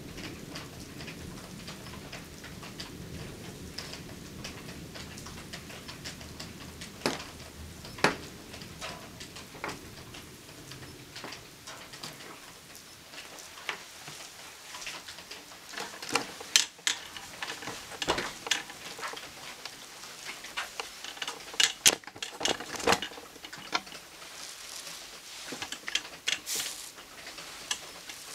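Scattered raindrops tapping and pattering in irregular single ticks, growing more frequent about halfway through. Under the first ten seconds or so, a low rumble of distant thunder dies away.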